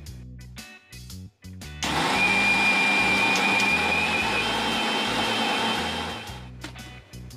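Bajaj mixer grinder motor running with a steady whine, grinding soaked rice and dal with water into batter; it starts about two seconds in and winds down near the end. Background music plays throughout.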